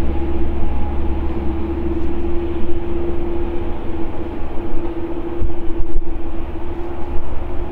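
Boeing 787-9's GEnx-1B turbofan engines at taxi idle: a steady running noise with one held tone over a low rumble.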